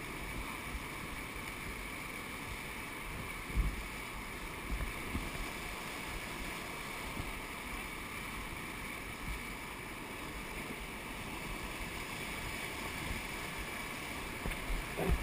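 Steady rushing of whitewater rapids, with a few low bumps around four and five seconds in.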